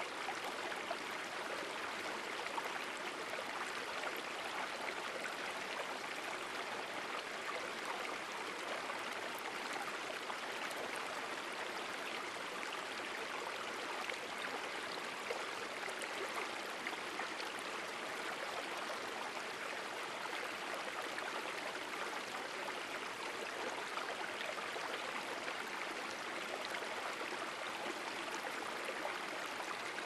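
Steady rush of running water: geyser runoff splashing down a narrow channel in a mineral bank into a flowing river.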